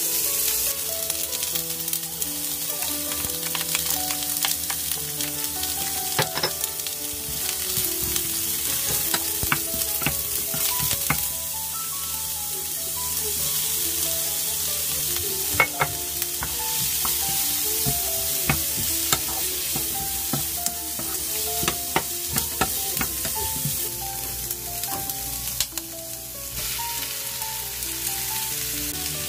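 Sliced onion, garlic and carrot strips sizzling in hot oil in a nonstick frying pan, stirred with a wooden spatula that clicks and scrapes against the pan again and again. The sizzle drops a little near the end.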